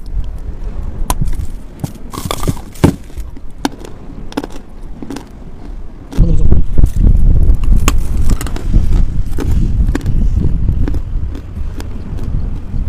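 Biting into and chewing a block of chalk: a run of sharp, crackling crunches. About six seconds in, a strong low rumble of wind buffeting the microphone sets in under the crunching.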